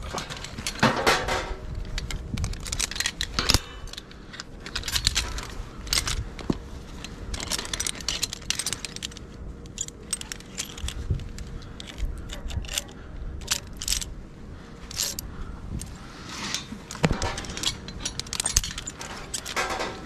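Metal climbing hardware jingling and clinking in irregular bursts as a climber works up a steel lattice cell tower: snap hooks, carabiners and the safety-climb sleeve on the tower's steel cable knock against each other and against the steel members as gloved hands grab them.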